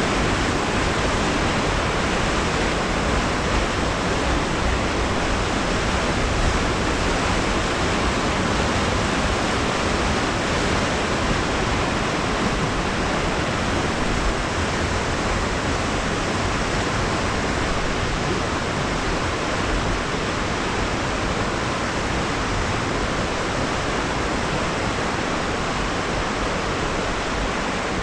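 River water rushing through a canyon: a steady, unbroken rush of noise.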